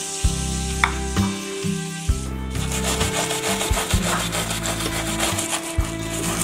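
Small wire brush scrubbing the mesh filter disc of a tap aerator against a wooden board in quick back-and-forth strokes, getting off hard-water deposits.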